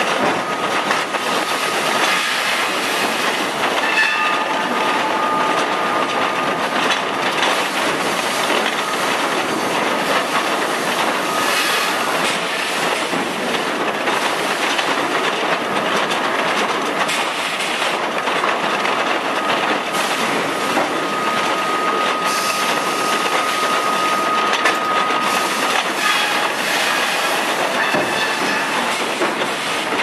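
Sawmill log-infeed machinery running: chain conveyors and rollers carrying logs, making a steady loud clatter with logs knocking against the steel. A faint thin whine rises over it briefly a few seconds in and again for several seconds in the second half.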